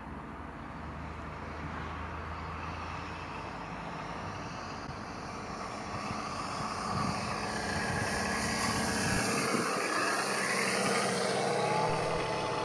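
Electric RC scale model Stinson Reliant SR-9 in flight, its Benedini sound module playing a simulated radial engine sound over the propeller and brushless motor. The sound grows steadily louder as the model comes in for a low, close pass.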